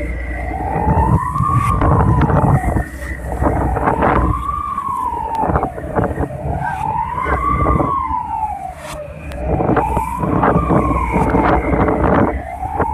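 Emergency alarm siren wailing, its pitch rising and falling slowly about every three seconds, over a steady rush of wind and sea.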